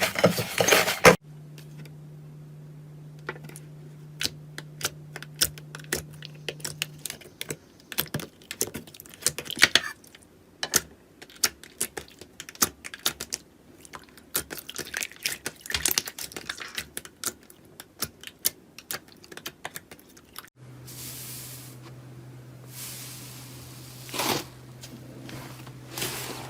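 Slime being squeezed, poked and stretched by hand, giving quick irregular runs of sharp clicking pops.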